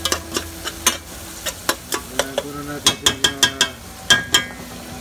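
Chopped onion sautéing and sizzling in oil in a large aluminium pot, stirred with a spoon that scrapes and knocks against the pot. A quick run of knocks comes about three seconds in, and another pair a second later.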